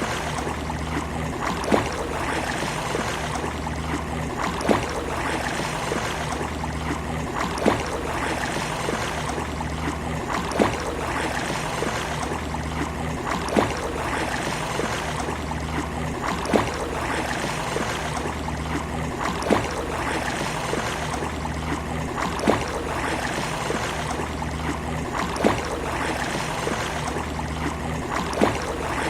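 Steady wash of sea waves on a beach, with a sharp tick about every three seconds and a low steady hum underneath.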